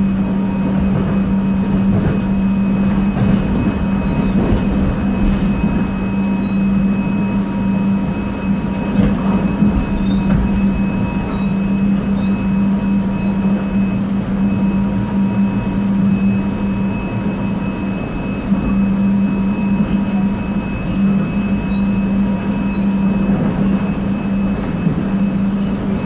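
Steady running noise heard inside a Seoul Subway Line 1 electric commuter train moving between stations: a constant low hum with a faint steady higher whine and scattered light ticks.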